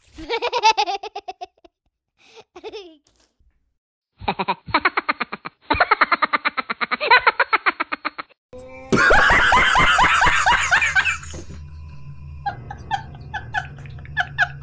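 Edited meme sound effects: a wavering "ooo hooo hoo" voice, then several bursts of rapid cartoonish laughter, the loudest about nine seconds in. Short music with a regular beat comes in near the end.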